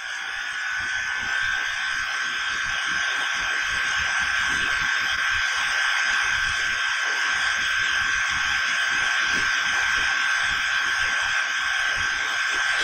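Steady buzzing hiss with a high held tone through it, swelling over the first couple of seconds and then holding level.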